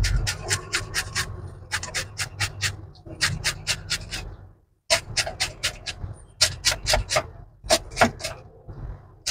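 Knife chopping fresh coriander on a wooden cutting board: quick runs of sharp taps, about six a second, broken by short pauses.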